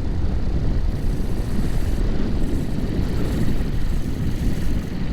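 Small propeller aircraft engine running steadily while taxiing, heard through a helmet-mounted microphone as a dense, loud rumble with wind noise.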